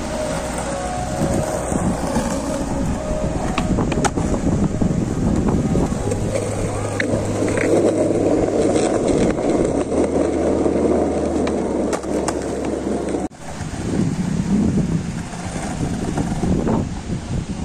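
Skateboard wheels rolling over rough concrete, a steady rumble, with a couple of sharp knocks.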